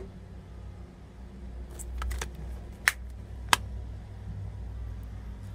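Plastic Blu-ray case being handled and snapped shut: a few light clicks about two seconds in, then two sharp clicks about half a second apart, over a low steady hum.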